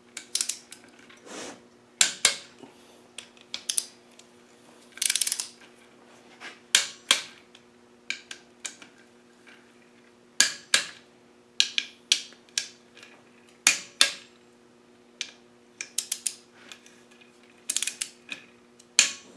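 Ratchet wrench clicking in short bursts, some in quick runs, as the cover bolts of a transfer case are tightened down. A steady low hum runs underneath.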